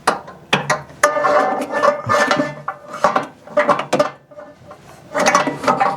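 A power cord being fed down through the hole in a photo booth's pillar, scraping and knocking against the pillar in several stretches, with sharp knocks and some ringing.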